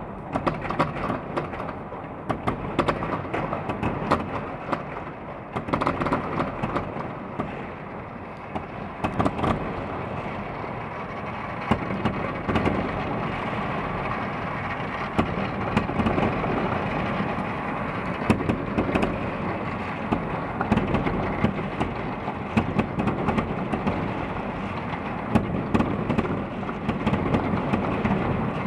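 Many fireworks and firecrackers going off at once across the city: a constant crackle packed with sharp bangs, with no gaps.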